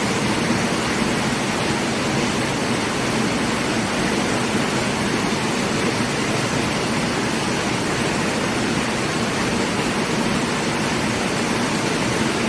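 Steady, even rush of running water, unbroken and level throughout.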